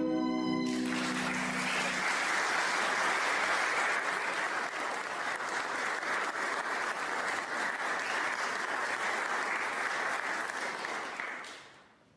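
Congregation applauding. The clapping starts under the last held notes of music and fades out near the end.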